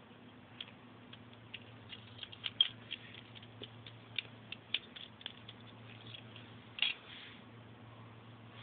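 Faint, irregular clicks and taps of plastic Lego pieces being handled and fitted together, a sharper click about two and a half seconds in and another near seven seconds.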